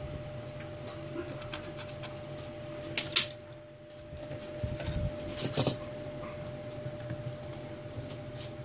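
Hands handling a Samsung Galaxy Core Prime smartphone and small repair tools: a few scattered sharp clicks and taps, the loudest about three seconds in and more about five and a half seconds in, over a faint steady hum.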